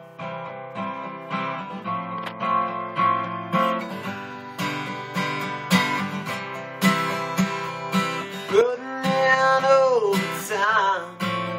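Acoustic guitar strummed in a steady rhythm. About nine seconds in, a man's singing voice comes in over it.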